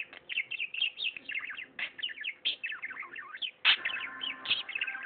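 Pet budgerigar warbling and chattering, a rapid, unbroken run of short high chirps.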